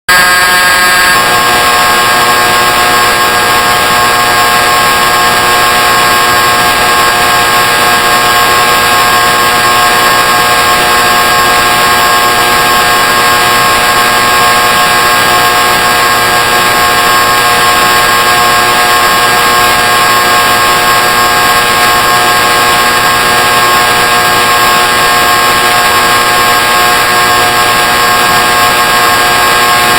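A loud, steady electric buzzing tone with a rich, unchanging pitch, settling slightly about a second in and then holding without variation.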